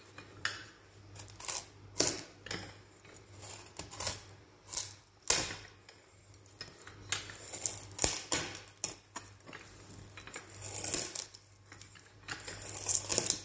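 Handle-less hooked stock knife levered down through a dry, seasoned hazel stick, taking heavy shavings with the grain. An irregular series of sharp cracks and snaps as the blade bites and the fibres split. Several longer crunching slices near the middle and the end, with light metallic clinks from the hooked blade pivoting on its eye.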